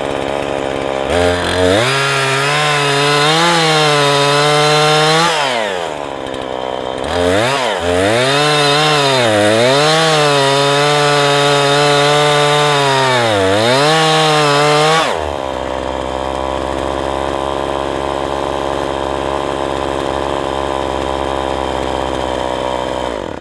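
Husqvarna 340e two-stroke chainsaw at full throttle, making the felling back cut through a chestnut trunk. Its engine pitch dips and recovers repeatedly as the chain loads up in the wood. About fifteen seconds in it drops to a steady idle, then stops at the very end.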